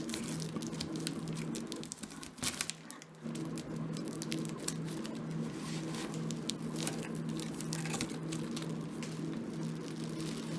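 Plastic bubble wrap and cardboard packing crinkling and tearing in irregular crackles as the wrapping is worked and cut away from a sword. A steady low hum runs underneath and briefly drops out about two and a half seconds in.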